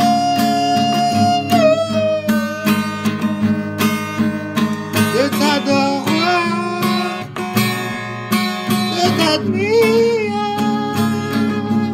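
A man singing long held notes that waver and slide in pitch, over a steadily strummed acoustic guitar.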